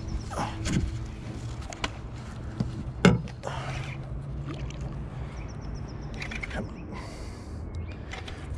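Baitcasting reel being cranked as a small barramundi is played beside a small boat, with scattered knocks on the boat, the loudest about three seconds in, over a steady low hum.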